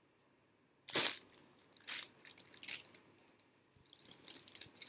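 A clear plastic packaging bag crinkling as a cotton baby romper is pulled from it and unfolded, in a few short bursts: the loudest about a second in, with a quick cluster of small crackles near the end.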